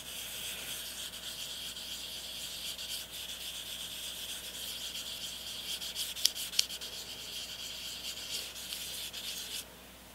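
Steel air-compressor valve plate being lapped by hand, slid back and forth on adhesive-backed abrasive sheet over a granite surface plate: a steady scratchy rubbing, with two sharp clicks a little past halfway, stopping suddenly near the end. It is a light lapping pass to flatten the valve faces so the valves seal.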